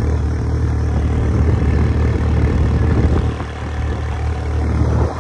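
Quad bike (ATV) engine running steadily while being ridden over sand, with a brief drop in loudness a little past halfway.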